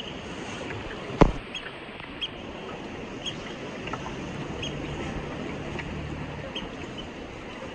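Steady wash of sea water around a boat, with one sharp knock about a second in and scattered light ticks; a faint low hum comes in briefly around the middle.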